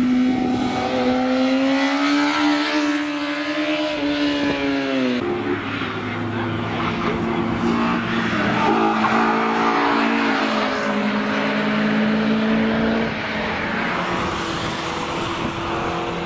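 A sport motorcycle's engine running hard through a corner, its pitch rising and then falling. About five seconds in it cuts abruptly to a Honda S2000's four-cylinder engine running at steady high revs as the car passes. Another car's engine takes over near the end.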